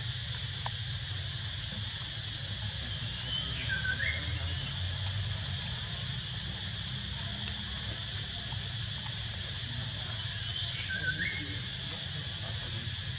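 Steady outdoor ambience, a constant high hiss over a low rumble. Two short whistled calls come about seven seconds apart, each dipping and then rising in pitch.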